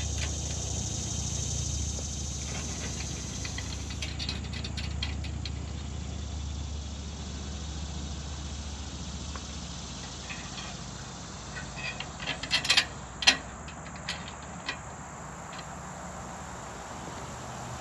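Small metal parts of a solar panel's mounting bracket clicking and rattling as they are handled and fitted together, with a short cluster of sharper clicks about twelve to thirteen seconds in, over a steady low hum.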